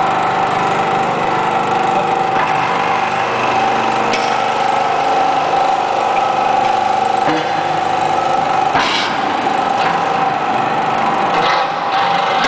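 Y81-series hydraulic metal baling press running under power, its motor and hydraulic pump giving a steady whine as the lid closes down over the scrap box. A few short sharp knocks of metal come through, about four, nine and eleven and a half seconds in.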